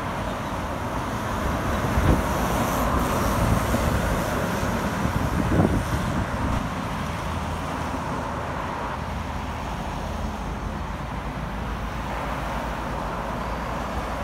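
Heavy truck and trailer driving past on a highway, engine and tyre noise swelling for a few seconds in the first half, then steadier road noise from cars going by.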